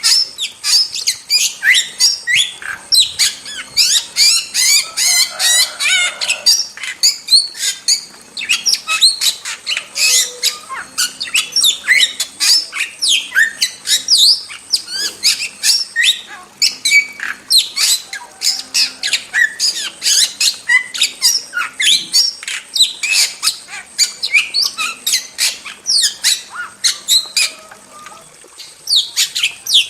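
Starling (jalak) singing continuously at full song: a rapid, chattering stream of short squawks, chirps and sliding whistles, several a second, with a brief lull near the end.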